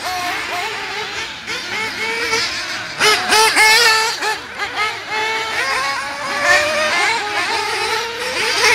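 High-revving nitro engine of a Losi 8IGHT 1/8-scale RC buggy, its pitch rising and falling rapidly as it accelerates and backs off through the track's corners and jumps.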